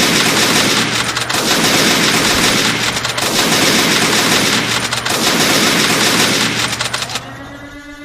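Minigun firing in one continuous rapid stream, cutting off about seven seconds in. A steady pitched tone follows near the end.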